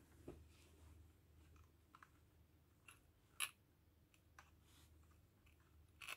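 Near silence with a few faint, scattered clicks and light rustling, the sharpest click about three and a half seconds in: a small plastic handheld sewing machine and cloth being handled, not running.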